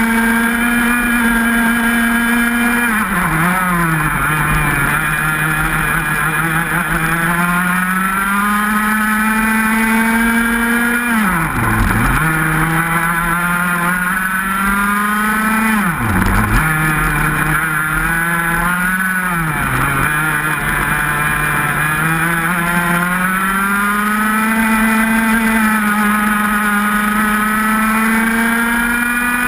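125 cc two-stroke racing kart engine at high revs, heard from on board. Its pitch drops several times as the driver lifts and brakes into corners, most deeply twice in the middle, and climbs back each time under acceleration.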